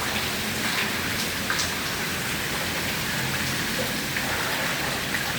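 Steady rushing hiss of water, with a few faint ticks of drops.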